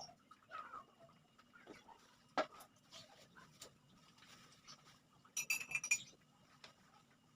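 Small metal objects being handled: scattered light clicks and taps, one sharper click, and a brief metallic jingle about five and a half seconds in.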